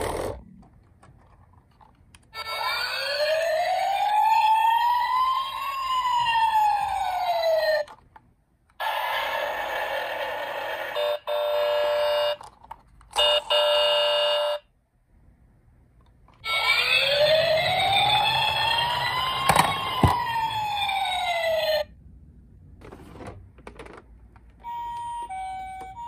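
Toy emergency vehicles' electronic sirens: two long wails, each rising and then falling over about five seconds, with a stretch of steady held tones between them and a short two-note hi-lo pattern near the end. Each sound starts and stops abruptly, as when a siren button is pressed and released.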